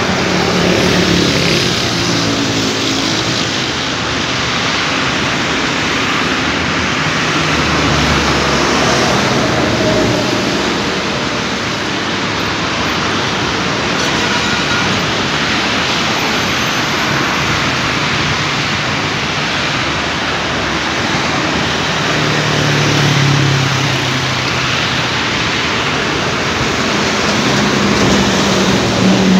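Road traffic on a multi-lane boulevard: a steady wash of tyre and engine noise, with the hum of individual vehicles rising and fading as they pass, loudest around two-thirds of the way through and again near the end.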